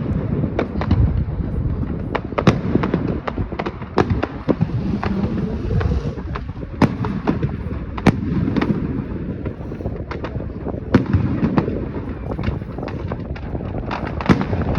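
Fireworks going off: many sharp bangs and pops at irregular intervals over a constant low rumble of further explosions.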